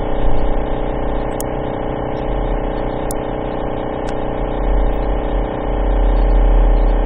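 A steady hum made of many fixed tones over a low rumble, the rumble growing louder near the end, with a few short clicks.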